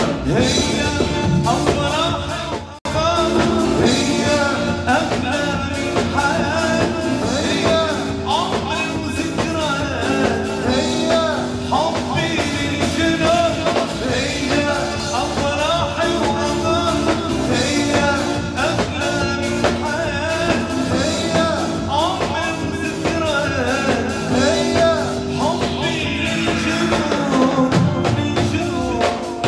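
Arabic band music: a winding, ornamented melody line over long held low notes and a steady drum beat, with a brief drop in level about three seconds in.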